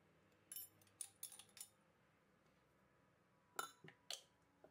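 Near silence with a few faint clinks of a small glass spice jar being tapped and handled as pepper flakes are shaken out: a quick cluster from about half a second in, then two more near the end.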